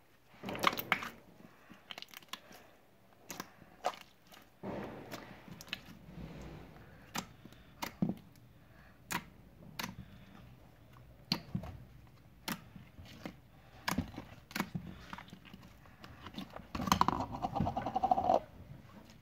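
Slime being squeezed and worked by hand, giving irregular sticky clicks and pops, with a denser burst of crackling near the end.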